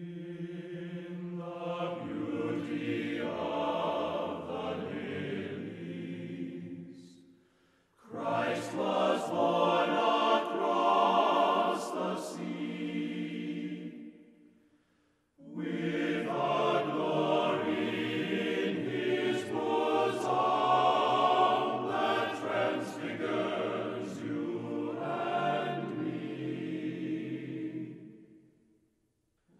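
Background music: choral singing, voices in harmony, in three long phrases separated by brief pauses.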